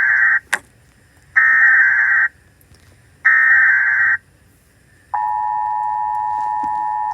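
US Emergency Alert System alarm: three short buzzy bursts of digital SAME header data, about a second each with gaps between, followed by the steady two-tone EAS attention signal starting about five seconds in.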